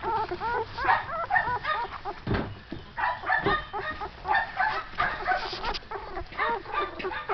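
A litter of young Shetland sheepdog puppies squealing and yipping, many short high-pitched cries overlapping in quick succession.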